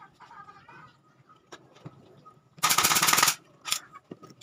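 Pneumatic nail gun firing a rapid burst of nails into a softwood frame: a loud clattering run of shots lasting under a second, about halfway through, with a few single knocks around it.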